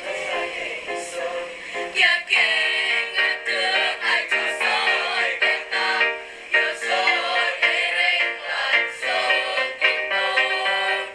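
A junior high school choir of boys and girls singing in several parts, with short repeated notes in the lower voices. The singing grows fuller and louder about two seconds in.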